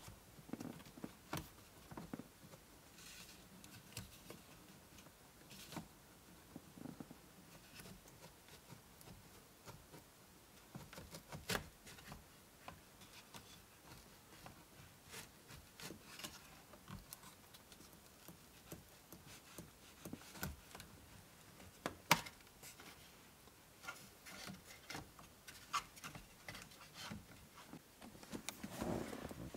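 Faint, scattered clicks and rubbing of hands working plastic dashboard trim loose around the instrument cluster, with a couple of sharper clicks about eleven and twenty-two seconds in.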